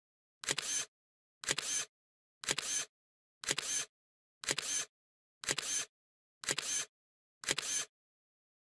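A short, identical sound effect repeated eight times, about once a second. Each hit starts with a sharp click, rings briefly, and drops into dead silence before the next.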